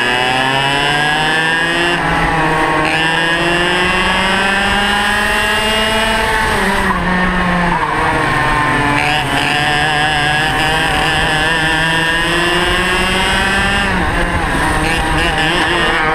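Onboard sound of a two-stroke racing kart engine under full throttle, its pitch climbing steadily as the kart gains speed. The pitch falls sharply about six and a half seconds in and again near fourteen seconds as the throttle comes off, then climbs again each time.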